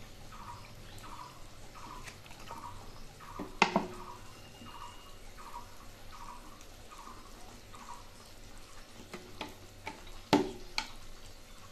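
Cooking oil glugging out of a plastic bottle into a kadai in short, even gulps about twice a second, then stopping. There are two sharp knocks, one about three and a half seconds in and another near the end.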